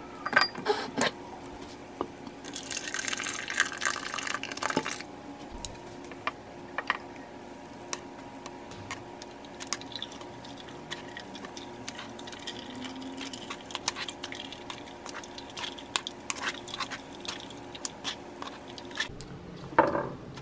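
Thick blended fruit juice poured into a wire mesh sieve over a ceramic bowl, splashing for a few seconds about two seconds in. Then a plastic ladle pressing and stirring the pulp against the mesh, with light clicks and taps as the juice drips through.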